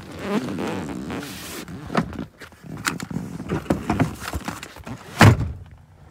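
Rustling and scraping, then several sharp plastic-and-metal clicks while the rear seat release latch is worked, and one heavy thunk about five seconds in.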